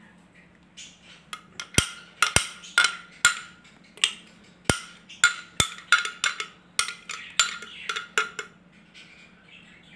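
Hard kitchenware knocking and tapping, a quick irregular run of about twenty sharp taps over some seven seconds, as the last of a blended cake batter is emptied from the blender jar into a bowl.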